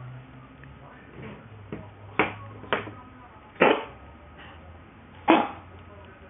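Domestic cat coughing in four short, sudden bursts over about three seconds, the last two the loudest. The owner wonders whether the cough is a forewarning of illness.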